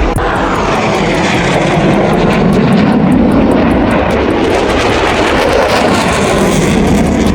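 Loud, steady engine noise of a fixed-wing aircraft in flight.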